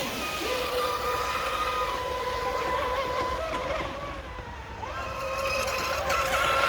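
High-pitched whine of electric RC racing boats running flat out on 6S LiPo batteries, the brushless motors giving a steady tone. It fades a little around the middle, then rises in pitch and grows louder as a boat comes back past.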